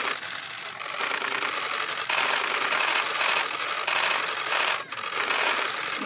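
Nestling songbirds begging in the nest: a dense, high, rasping chatter that goes on unbroken with a few brief dips.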